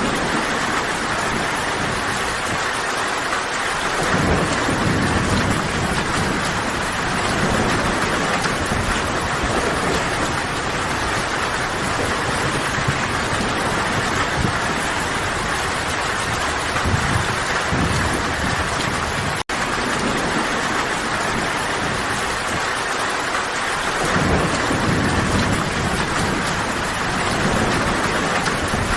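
Steady heavy rain, with low rolling thunder rumbling twice, about four seconds in and again near the end. The sound drops out for an instant about two-thirds of the way through.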